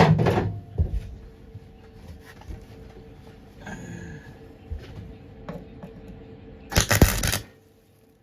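A Lincoln welder laying a short tack weld on the VW Beetle's floor panel steel, one crackling burst of under a second about seven seconds in, which is the loudest sound. Before it come a sharp burst at the start and scattered small metallic clicks and knocks.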